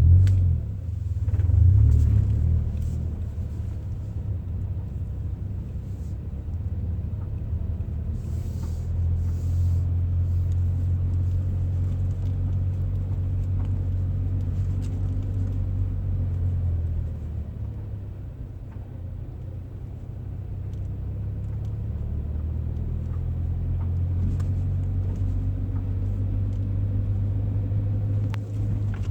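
Scion FR-S's 2.0 L flat-four engine running with a steady low rumble. It swells near the start, eases off about two-thirds of the way through, then builds again. A few faint sharp clicks sound here and there over it, which the owner calls a popping noise.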